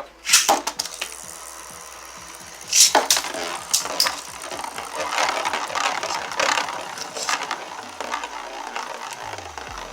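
Beyblade Burst tops, one of them 3D-printed, launched together with a sharp rip at the start, then spinning and whirring in a plastic stadium. They clash with loud clacks about three and four seconds in, followed by lighter rattling contacts.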